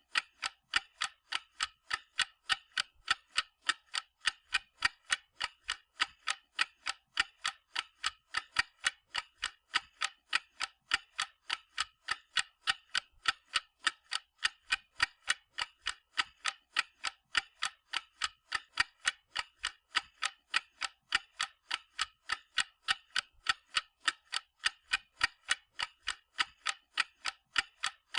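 Clock ticking steadily: a regular, unchanging train of sharp, even ticks.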